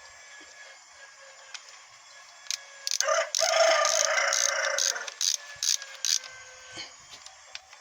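A rooster crows once, about three seconds in, for about two seconds, over a run of sharp clicks at roughly four a second that stop a little after six seconds.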